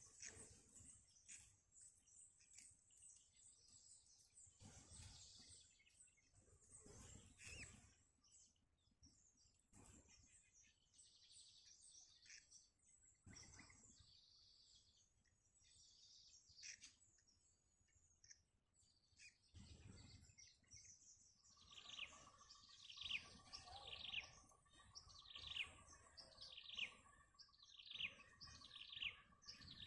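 Bird chirping: faint scattered chirps at first, then from about two-thirds in, a quick run of repeated high chirps, each falling in pitch, with a steady lower tone beneath.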